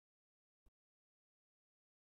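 Near silence: a gap in the soundtrack, with one very faint click about two-thirds of a second in.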